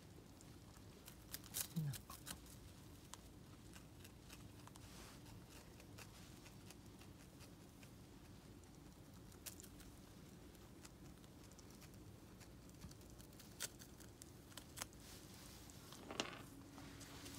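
A Richardson's ground squirrel nibbling leafy greens held in its paws: faint, sparse crisp chewing clicks over near silence, with a louder cluster of clicks about two seconds in.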